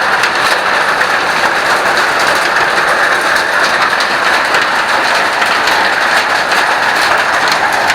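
Water splashing in a loud, steady rush, from water leaking into the cave.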